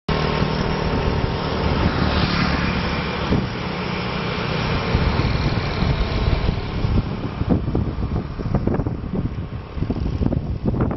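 Motorbike engines running as they pass along a road, a steady hum in the first half. From about two-thirds of the way in, wind buffets the microphone in uneven gusts.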